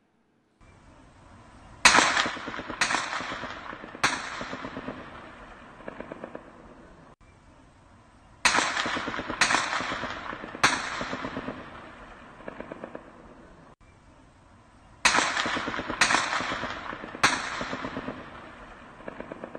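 Gunfire during an armed tribal clash: loud single shots in three groups of three, each shot echoing away over about a second, with a short rattle of fainter rapid automatic fire between the groups.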